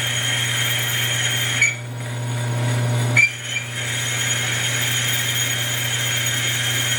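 Hardinge HLV lathe running with a parting tool cutting dry, without coolant, through the spinning ring blank: a steady motor hum under a steady high-pitched cutting whine. Near two seconds in the cutting noise drops away for about a second and a half. It resumes with a sharp click and runs steadily again.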